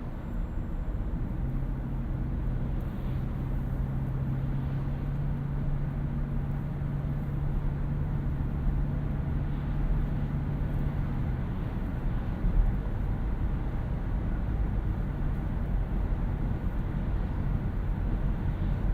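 Driving noise of a 2018 Toyota Auris Touring Sports 1.8 Hybrid: a steady low rumble of road and tyres. A steady low hum joins it about a second in and stops a little past halfway, and there is a single short thump soon after.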